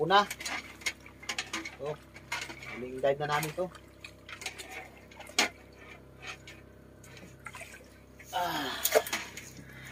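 A rope float line being hauled in hand over hand over the side of a small boat, with scattered light clicks and knocks against the hull and some water sounds. Brief voices come in at the start, about three seconds in and near the end.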